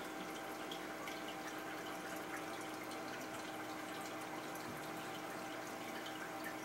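Fish tank water bubbling and trickling steadily from its aeration, with small drip-like pops over a faint steady hum.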